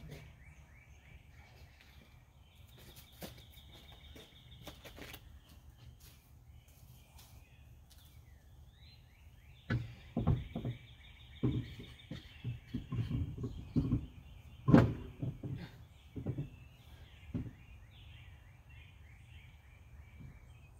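Birds chirping and trilling. About ten seconds in comes a cluster of dull knocks and thumps that lasts several seconds, the loudest near fifteen seconds in.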